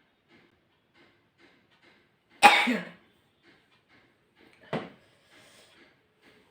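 A person sneezes once, loudly and suddenly, about two and a half seconds in; the sneeze is brought on by chilli. A shorter, quieter sharp burst follows about two seconds later.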